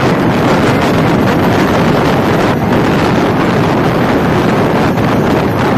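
Steady rush of wind buffeting the microphone at the open window of a moving diesel locomotive, with the train's running noise mixed in.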